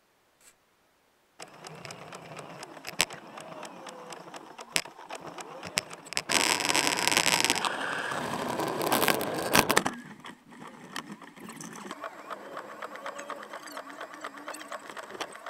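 Near silence for about a second and a half, then a Subaru Sambar mini truck pushing a Fisher V-plow through snow: the truck running under a steady rapid rattling and clicking, with a much louder rush of noise from about six to ten seconds in.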